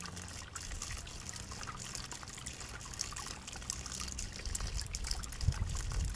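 A thin stream of water trickling and splattering from a plastic tub onto grass as a kitten's paw breaks it up.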